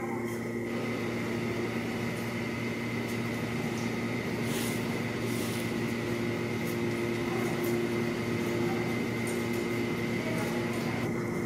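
Steady mechanical hum of an underground subway platform: a low drone with a few constant whining tones over it, and no train yet in the station.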